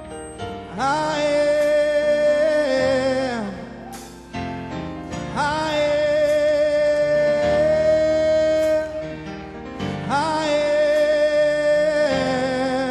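Live gospel song: three long sung phrases, each sliding up into a held, wavering note, over instrumental backing.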